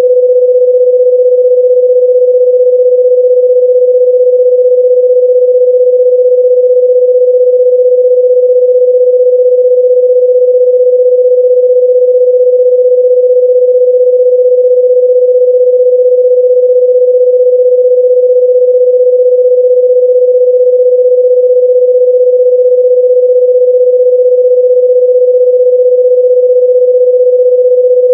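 A loud, steady electronic sine-wave tone: one unchanging mid-pitched beep held without a break.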